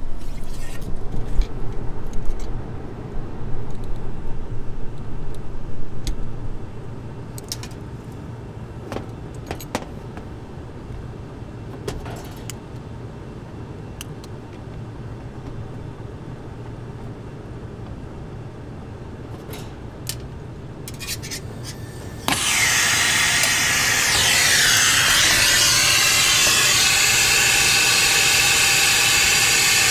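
Metal clinks and clicks of tools and fittings being handled over a low steady hum. About 22 seconds in, a loud, steady hiss of escaping gas starts abruptly, with a falling tone at first, from the brazing setup.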